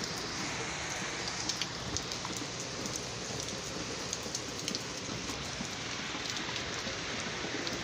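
Steady rain falling from a hurricane, an even hiss with scattered sharp ticks of drops.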